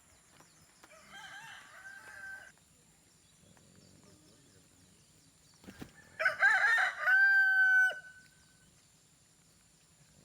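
A rooster crowing twice: a fainter crow about a second in, then a loud one about six seconds in that ends on a long held note.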